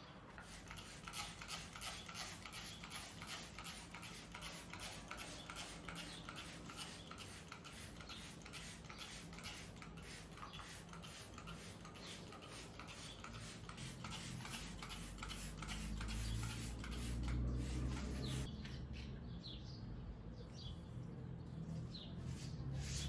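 A rapid, even run of scratchy clicks or rubbing strokes, several a second, that stops near the end. Birds chirp faintly after it.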